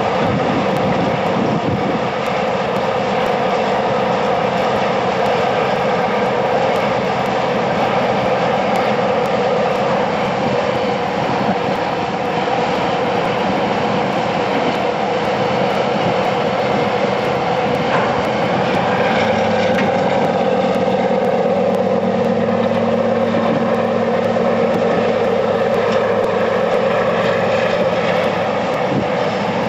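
Diesel engine sound running steadily, the engine sound effect given to a model Monighan 10W dragline. A deeper hum strengthens about two-thirds of the way through, then eases off near the end.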